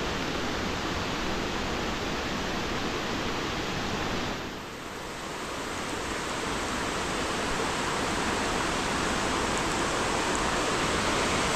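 Steady rush of floodwater from a river that has overflowed, running fast down a flooded lane. It dips briefly about four seconds in, then swells slowly again.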